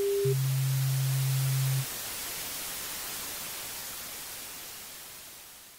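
Synthesized logo-intro sound effect: a last short electronic beep, then a low steady tone for about a second and a half over a hiss of static. The static then fades slowly away.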